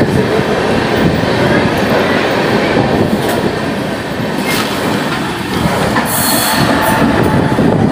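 Express passenger train pulling out of a station, its coach wheels rumbling and clattering on the rails, heard from the open coach doorway. A brief hiss comes about six seconds in.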